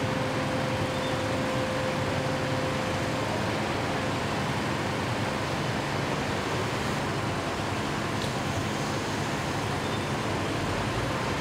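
Fire engines running steadily, a constant mechanical drone with a faint hum that fades out about three seconds in.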